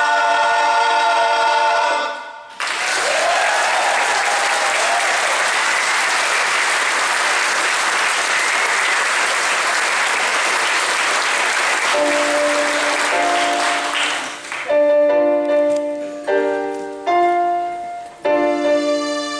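A men's choir holds a final chord that cuts off about two seconds in, followed by audience applause. Near the end the applause fades and a piano plays separate chords.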